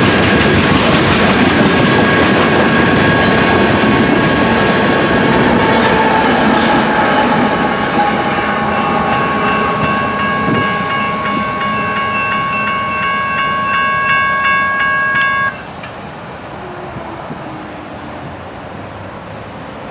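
A freight train of tank cars rolling past with wheels clicking over the rail joints, and a steady high ringing tone from several pitches at once. The tone and most of the train noise cut off suddenly about fifteen seconds in, leaving a quieter rushing noise.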